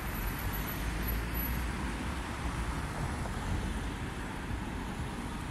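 Steady city traffic noise: an unbroken hum of road vehicles with a heavy low rumble.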